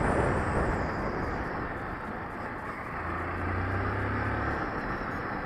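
Honda CG 160 Titan single-cylinder motorcycle riding along a street: wind rush on the microphone over the engine's drone, with a steadier low hum from about three to four and a half seconds in.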